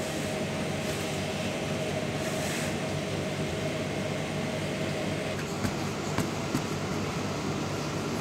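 Steady background hum of a room, with a faint steady tone through the first five seconds or so and a few soft clicks after that.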